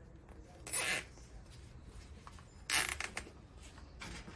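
Nylon cable ties being pulled tight through their locking heads, a short ratcheting zip twice, about two seconds apart.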